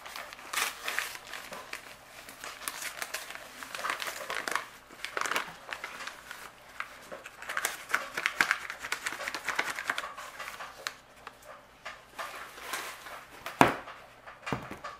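A bag crinkling and rustling as a white dry ingredient is poured from it into a plastic mixing bowl. Near the end a single sharp knock as the bowl is handled on the counter.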